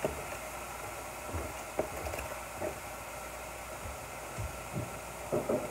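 Onions and peppers frying in a hot skillet, a faint steady sizzle, with a few light knocks of kitchen things.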